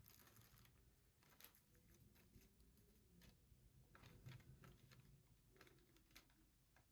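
Near silence, with faint scattered clicks and rustles of hands handling packaging.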